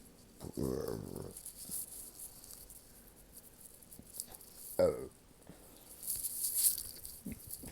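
A person burping with the hiccups: a drawn-out voiced burp about half a second in, then a short, sharp hiccup-burp with a quick drop in pitch a little before the five-second mark, and a brief faint one near the end. A breathy hiss comes between them.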